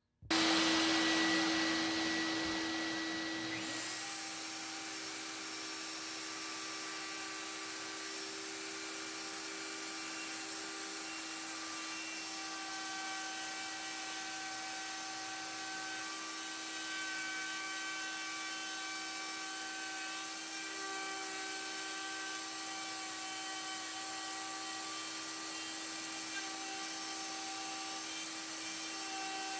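Router with a flush-cut bit switched on, settling to full speed over the first few seconds, then running with a steady whine while it routes out a walnut section of a hardwood floor inlay, following a plywood template.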